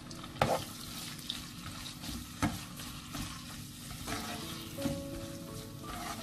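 Small prawns sizzling in hot oil in a non-stick frying pan as they are stirred with a spatula. The spatula knocks sharply against the pan three times.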